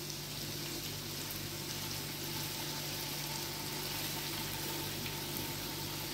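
Skewered marinated chicken pieces sizzling steadily in hot oil on a flat tawa.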